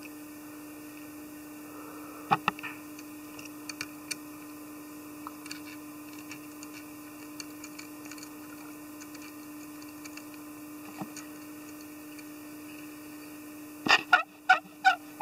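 Steady low hum with scattered faint clicks and taps from handling the tube needle and vise at a fly-tying bench, then a short cluster of louder sharp clicks about a second before the end.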